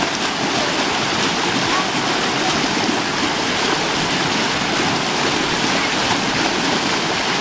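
River water rushing over rocks in a small rapid, a steady rush of whitewater.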